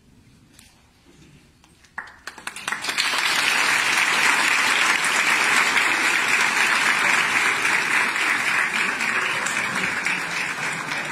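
A large audience applauding. It is near quiet at first, then about two seconds in a few scattered claps quickly swell into steady, loud applause that eases slightly near the end.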